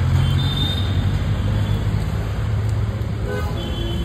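Road traffic noise with a steady low engine hum from vehicles running close by, and a brief higher tone about three seconds in.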